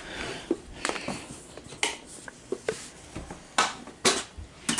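A series of sharp clicks and knocks at uneven intervals, about six in all, the loudest two a little past the middle.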